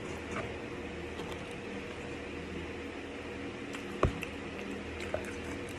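Steady background hum with soft eating and handling of food in a plastic takeout tray; one sharp tap about four seconds in.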